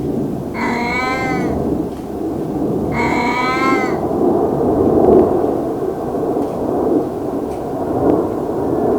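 Elderly cat meowing twice, about two seconds apart, each meow about a second long and rising then falling in pitch. After the second meow a loud low rumbling noise takes over.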